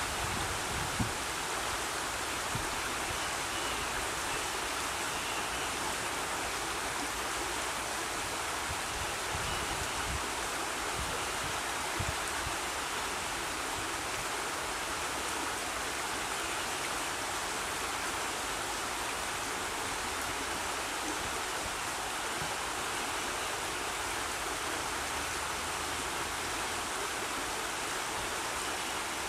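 River Wye rapids: shallow river water rushing steadily over the riffles, a continuous even rush.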